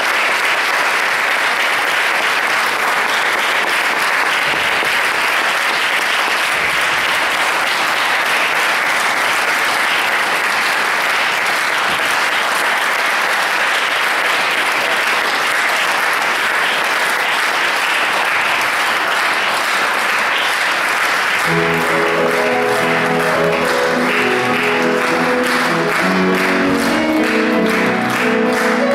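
Audience applauding, a steady even clapping. About three-quarters of the way through, a grand piano begins playing chords while the applause goes on under it.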